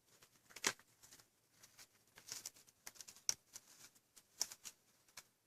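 Faint, scattered light clicks and soft rustles of a shipping container and packing being handled, with a few sharper ticks, the sharpest about three seconds in.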